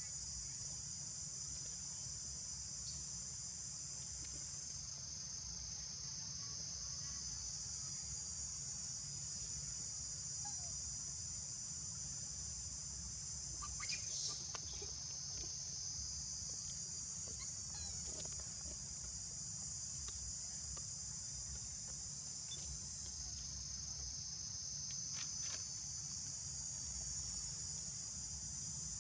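Steady, shrill insect chorus, a continuous high buzzing, over a low background rumble. A brief sharp sound about halfway through and a fainter one near the end.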